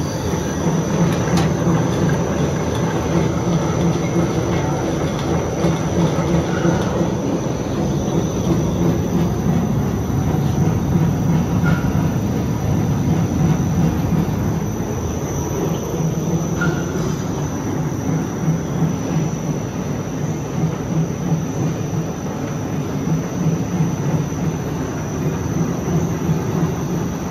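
Two-colour flexographic printing press running steadily as the printed paper web winds onto the rewind roll: a constant mechanical hum with a thin, steady high tone above it.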